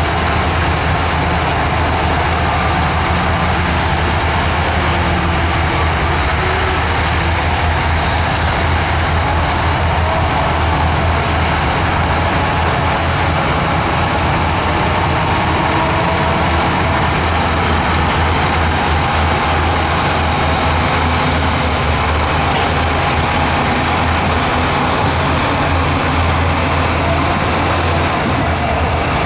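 Heavy earthmoving machine's diesel engine running steadily: a continuous deep drone, with a faint wavering whine above it.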